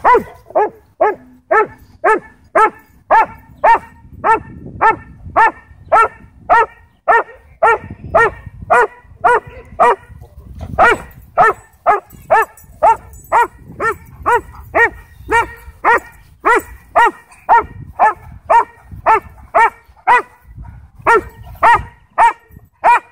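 A dog barking over and over, about two to three loud barks a second, with brief pauses about halfway through and near the end.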